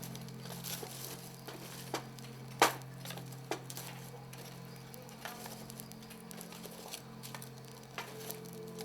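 A few scattered sharp clicks and light knocks, the loudest about two and a half seconds in, over a steady low hum.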